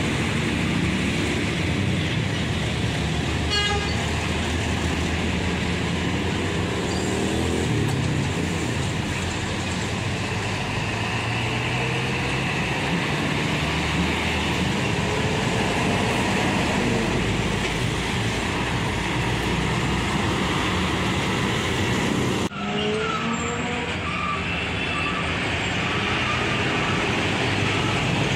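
Busy road traffic with heavy diesel trucks and cars passing close by, engines running steadily under the noise of tyres on the road. The sound changes abruptly about three-quarters of the way through.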